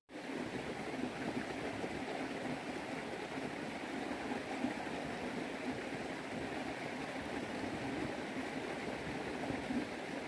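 Steady rushing of running water, as from a stream, unchanging throughout.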